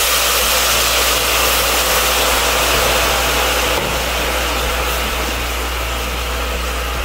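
Hot water hitting caramelized sugar in a pan, a loud steady sizzling hiss that eases off a little after the middle. The sugar is being loosened with water to make the caramel syrup for a pudding.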